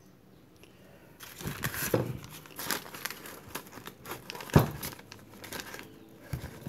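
Hands handling a sheet of notebook paper and a freshly wound motor stator: irregular crinkling and rustling that starts about a second in, with one sharp knock about two-thirds of the way through.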